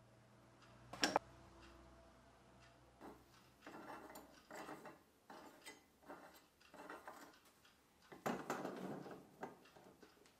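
Brass pipe fittings being handled and threaded together by hand: one sharp metallic click about a second in, then short, uneven bouts of scraping and clinking metal, the busiest a little after the eight-second mark.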